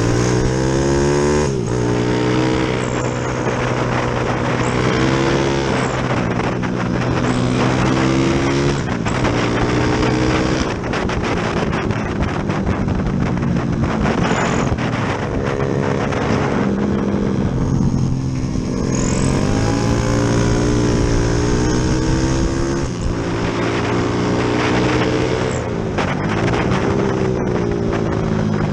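Yamaha Jupiter MX motorcycle's single-cylinder four-stroke engine, fitted with a 72 mm piston, being ridden hard: revs climb and fall back again and again as the rider shifts and rolls on and off the throttle.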